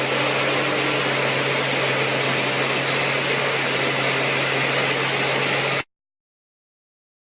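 Steady running noise of a machine with a low, constant hum, unchanging until it cuts off abruptly into silence about six seconds in.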